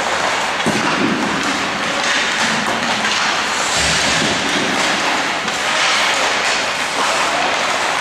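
Ice hockey warm-up: a steady wash of rink noise from skates on ice and pucks, with one dull thump about four seconds in as a puck is shot.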